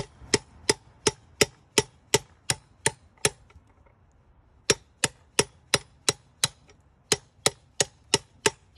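Claw hammer striking a steel socket used as a bearing driver, sharp metallic taps about three a second, pressing a new wheel bearing into a dirt bike's wheel hub. The hammering pauses for about a second and a half in the middle, then resumes at the same pace.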